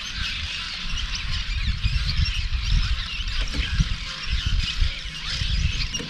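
Many birds chirping and squeaking at once in a busy chorus of short, quick calls, over a low, fluttering rumble of wind on the microphone.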